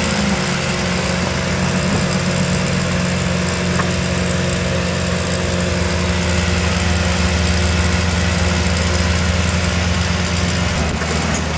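Ford Bronco II's engine running steadily at low revs, with no rise or fall in pitch.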